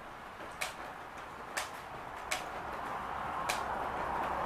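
Rain: single drops tapping a hard surface four times, roughly a second apart, over a hiss of rainfall that swells in the second half.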